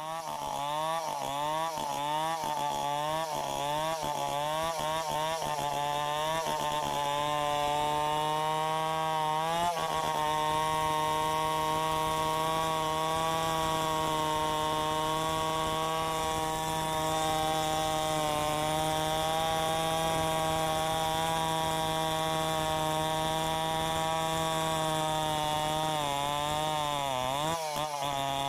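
Tecomec two-stroke chainsaw running at high revs and cutting wood. Its engine pitch rises and falls rhythmically, about once every half second, for the first several seconds, then holds steady under load, with one brief dip and recovery near the end.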